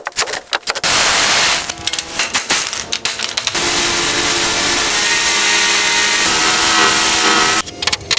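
A power tool running steadily for about seven seconds with an even, hissing noise, cutting off sharply near the end; a few clicks and knocks come just before it starts and after it stops.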